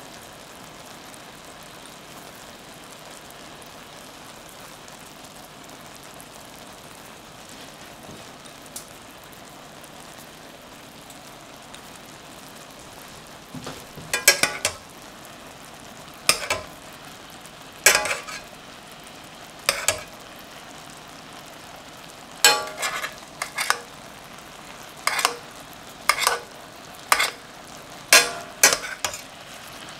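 Chicken thigh fillets frying in a frying pan with a steady sizzle. From about halfway, a metal spoon scrapes and clinks sharply against the pan a dozen or so times as the chicken is basted with the pan juices.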